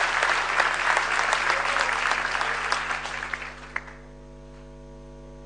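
Audience applauding, the clapping thinning out and dying away about four seconds in. A steady mains hum is left behind.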